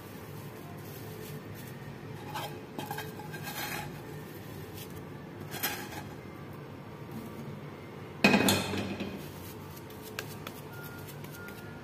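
Wooden spatula scraping and knocking thick cooked carrot fudge mixture out of a metal frying pan onto a steel plate. There are scattered scrapes and taps, and a louder clatter of metal about eight seconds in.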